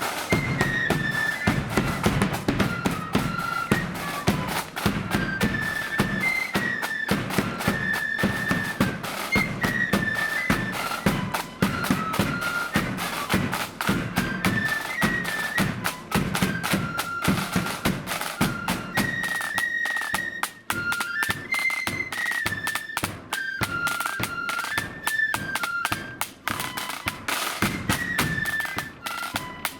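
Marching flute band playing a march: massed flutes carry a high melody over steady bass drum and snare drum beats.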